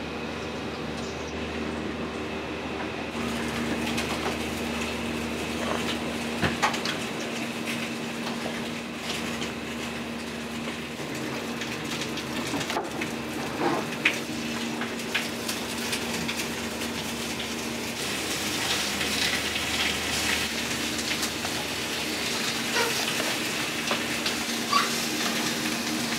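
Kitchen work sounds: a steady hum from kitchen equipment under scattered short knocks and clicks of utensils. A brighter hiss joins about eighteen seconds in.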